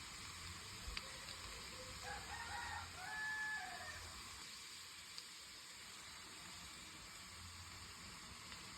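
A rooster crowing once, a call of about two seconds in a few stepped parts, over a steady background hiss.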